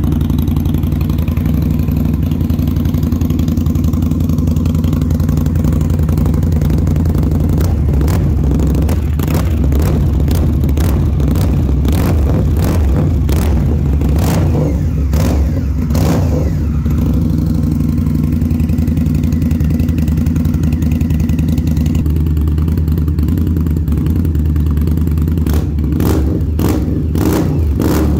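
Indian Scout Bobber's 1133cc V-twin idling steadily through aftermarket slip-on mufflers. A run of sharp clicks comes through over the engine about eight seconds in, and again near the end.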